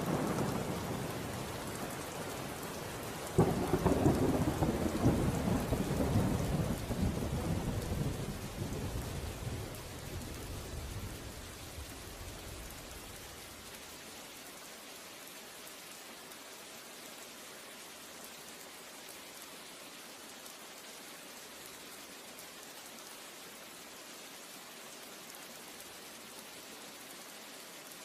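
Thunder rumbling over steady rain. A louder peal starts suddenly a few seconds in and dies away over about ten seconds, leaving only the hiss of rain.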